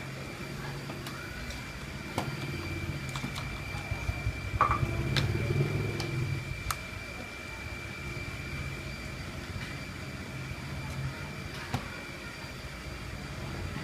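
A scattering of short, sharp plastic clicks and taps as the HP ProBook 450 G0's screen bezel is pried and worked loose by hand and with a small screwdriver. They are most frequent a few seconds in. Underneath runs a steady low rumble and a faint, steady high-pitched whine.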